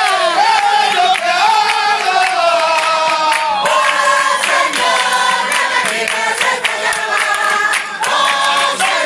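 A group of men and boys singing a worship song together, with hands clapping along.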